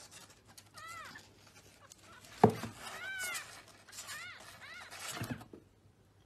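A tiny kitten mewing: about four short, thin, high-pitched mews spread across a few seconds. A sharp knock comes about two and a half seconds in, louder than the mews, and a softer one follows near the end.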